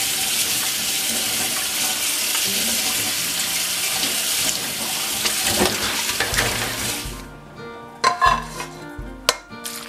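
Tap water running onto freshly cooked adzuki beans in a stainless steel mesh colander over a stainless sink, stopping about seven seconds in. Then a few sharp metallic clinks as the colander is tipped against the rice cooker's inner pot. Soft background music throughout.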